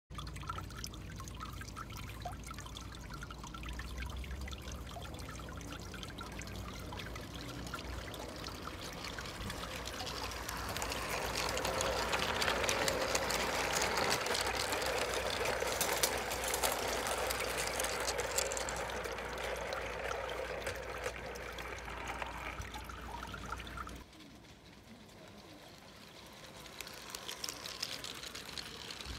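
O gauge model train running on garden track, a continuous rushing, rolling noise. It grows louder as the wagons pass close by, then drops sharply about three-quarters of the way through.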